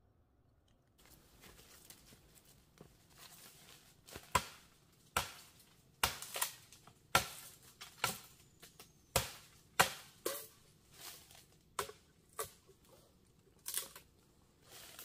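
Dry bamboo leaf litter and twigs rustling and crackling as they are handled and trampled, with about a dozen sharp cracks at uneven intervals over the rustle.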